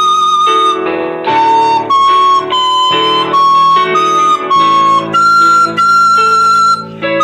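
Recorder playing a slow melody of held notes, one held longer with a slight waver near the end, over a steady chordal accompaniment.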